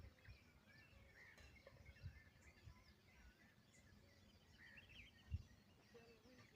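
Faint, scattered chirps and twittering whistles of birds, with low bumps of wind or handling noise, one sharper thump about five seconds in.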